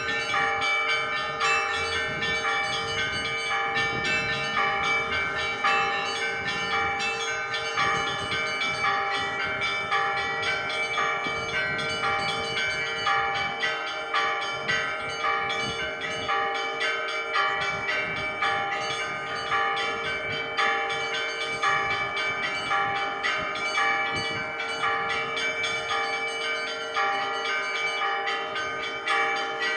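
Church bells ringing: several bells of different pitches struck in a quick repeating pattern over the lingering hum of a larger bell.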